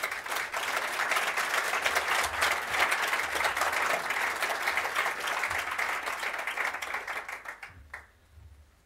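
Audience applauding, many hands clapping together, dying away shortly before the end.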